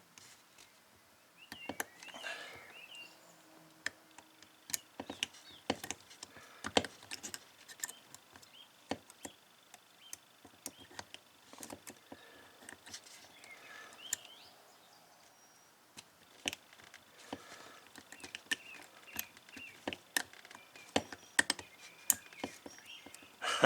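Small, irregular clicks and ticks of a Master Lock combination padlock as its number dials are turned and its shackle is pulled under tension to feel for the combination.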